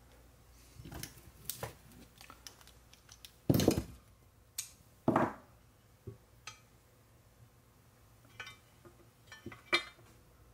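Light metal clinks and knocks from hand tools and engine parts as a water pump seal is fitted into a Yamaha YZ450 engine, with two louder knocks about three and a half and five seconds in.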